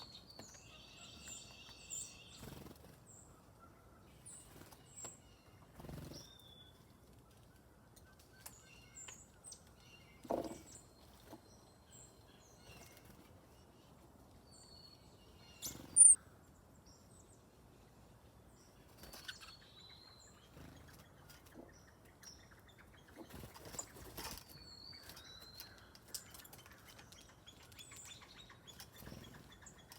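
Small songbirds chirping and calling intermittently, with short high notes scattered throughout, a few soft thumps, and one sharp loud tap about halfway through.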